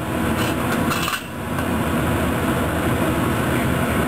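A few metal clinks in the first second or so as a stainless slotted spoon is set down on a metal pot lid, over a steady background noise.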